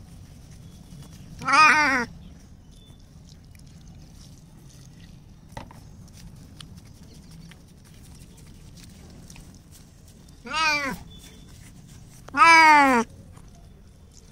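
A cat meows three times while being bathed, crying in protest at the wash. Each meow rises and falls in pitch; the first comes about a second and a half in, the other two close together near the end, the last longest and loudest.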